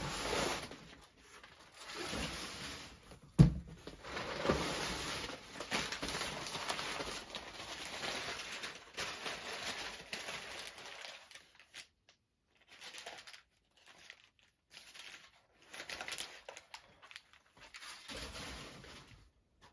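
Packaging crinkling and tearing as items are handled and unwrapped, with one sharp knock about three and a half seconds in. The rustling thins out to short, fainter bursts in the second half.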